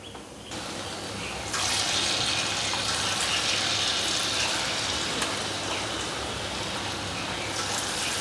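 Taler bora batter (palm-fruit fritters) dropped by hand into hot oil in a karahi, sizzling steadily as it deep-fries; the sizzle starts up about a second and a half in.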